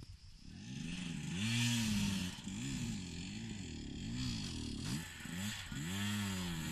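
Single-cylinder enduro motorcycle engine revving up and down over and over, the throttle opened and shut about every second as it rides a rough trail. It comes in about half a second in.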